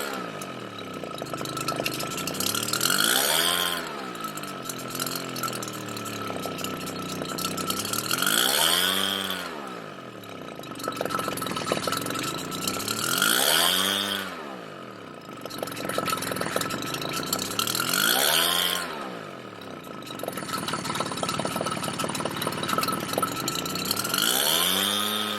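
Redmax EBZ7500 backpack blower's two-stroke engine surging: the revs climb and fall back again about every five seconds, five times over. The surging is a fuel-delivery fault in a carburetor that cleaning has not cured.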